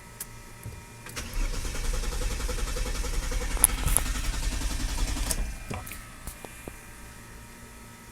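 Car engine cranking on the starter for about four and a half seconds without catching, then stopping: the car will not start.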